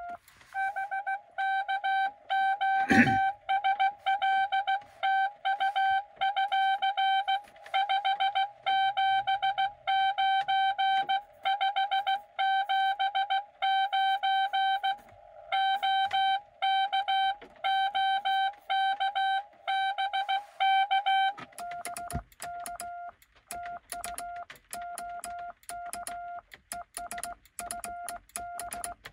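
Morse code beeps from a Xiegu X6100 transceiver: one station's keying, loud and buzzy, for about twenty seconds, then a slightly lower, softer tone with sharp clicks, typical of the operator's own sidetone and the contacts of a cootie (sideswiper) key. A single thump sounds about three seconds in.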